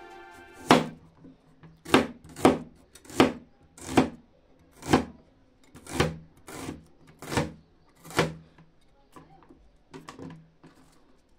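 A large kitchen knife slicing through an onion and knocking onto a PVC cutting board: about ten separate crunchy cuts at an uneven pace, with a few lighter taps near the end.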